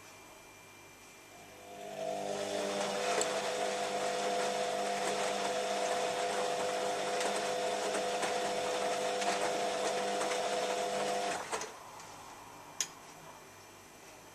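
Beko WM5101W washing machine's drain pump running with a steady whine over a watery rush. It starts about a second and a half in and cuts off suddenly near the end. A single sharp click follows about a second later.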